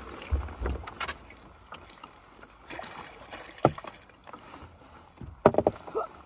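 Handling noise in a small fishing boat as a jack pike is reeled to the side: low knocks against the hull and scattered clicks. Near the end comes a loud cluster of sharp sounds as the fish is lifted out of the water.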